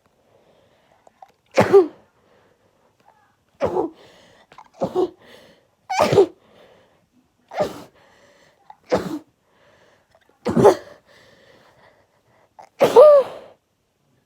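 A person sneezing over and over in a sneezing fit: eight sharp sneezes about one to two seconds apart, the last one longer and voiced.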